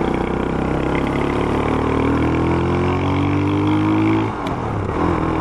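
Vento Nitrox 250's single-cylinder engine pulling under acceleration, its pitch rising steadily for about four seconds. It then drops abruptly and runs on at a steady lower pitch.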